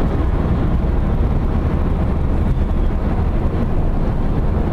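Steady road and engine noise heard from inside a moving car cabin at freeway speed, mostly a low, even rumble.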